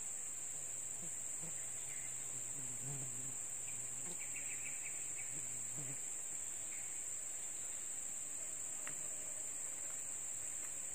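Insects droning steadily in a high, unbroken buzz, with a faint low murmur in the first half.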